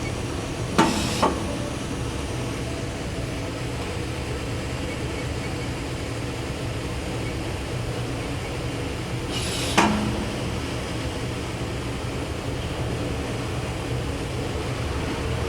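Citizen L20 Swiss-type CNC lathe running with a steady hum, with two sharp knocks about a second in and another sharp knock near the ten-second mark.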